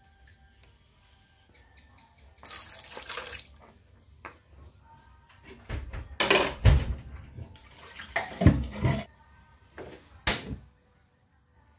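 Water splashing into a metal cooking pot in several short pours, loudest around the middle.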